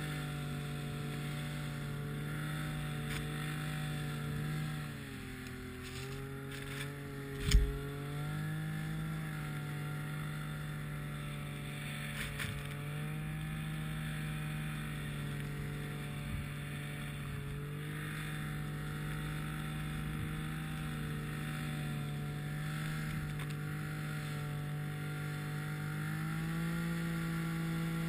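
Snowmobile engine running at a steady droning pitch. It eases off about five seconds in, there is a single sharp thump a couple of seconds later, then it picks back up and runs steadily, rising slightly near the end.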